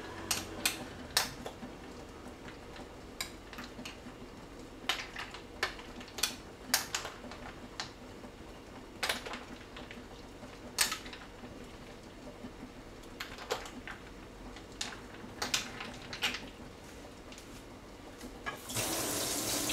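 A spoon clinking now and then against a glass bowl of fruit punch and ice cubes as it is stirred. Near the end there is a second-long rush of running tap water.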